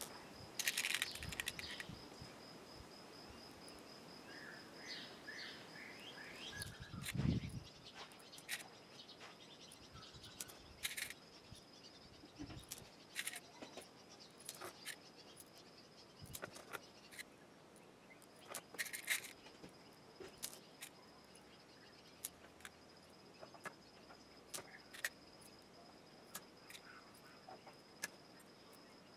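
Small clicks and taps of metal cartridge shells and lead pellets being handled and set down while pellets are loaded into the shells, with one duller knock about seven seconds in. Behind it a faint steady high insect trill, which breaks off for a moment around the middle.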